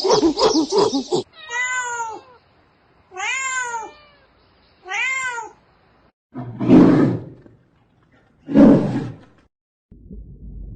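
A cat-like animal gives three short meowing calls, each rising and falling in pitch. Two louder, rasping calls follow. Before them, a rapid pulsing animal sound cuts off about a second in.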